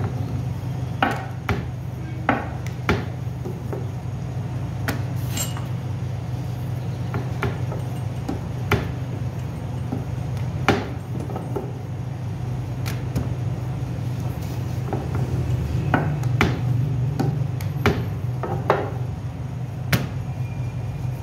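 Bakery work sounds: irregular knocks and clicks of tools and utensils over a steady low hum.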